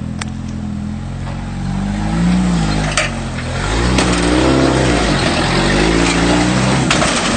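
Jeep engine revving under load as it crawls up over boulders, the pitch climbing twice as the throttle opens. A few sharp knocks sound in between.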